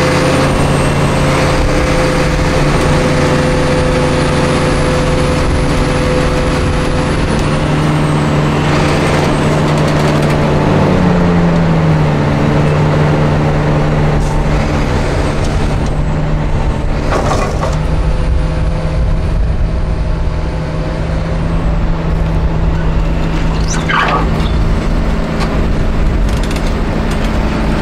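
Heavy diesel engines of an excavator and an off-road trial truck running steadily, with the revs dropping about eleven seconds in. Two short hisses come in the second half.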